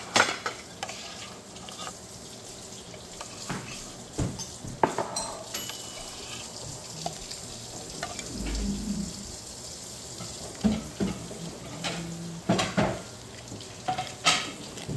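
Irregular clicks, taps and light scraping of small utensils against plastic cups and trays while a candy-kit strawberry sauce is stirred and mixed.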